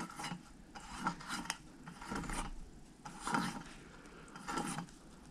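Yamaha RD50 two-stroke engine turned over by hand with its aluminium cylinder just fitted: the piston and rings slide in the bore with a faint rubbing, rasping sound in slow strokes about once a second. It is a check that the piston moves freely and the rings don't snag on the ports, and it turns over without catching.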